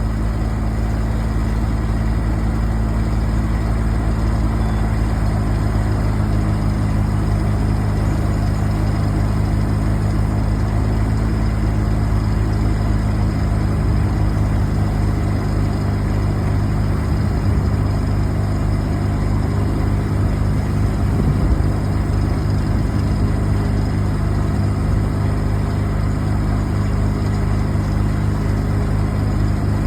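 A large engine running steadily at idle, with a deep, even hum and a slight surge about two-thirds of the way through.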